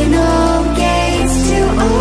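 Background music: a melody over a sustained bass line, with the bass and chord changing a little past halfway.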